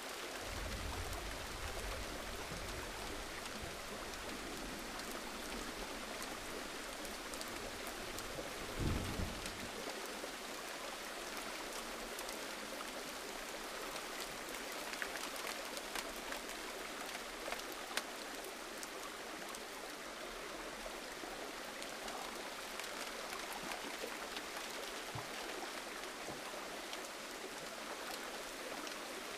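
Gentle rain falling steadily: an even hiss with scattered single drops ticking close by, and one brief low thump about a third of the way through.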